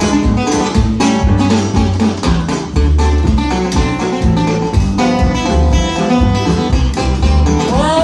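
Live band playing an instrumental break in a 1920s-style jazz blues: plucked and strummed strings on a steady beat over moving bass notes, with no singing.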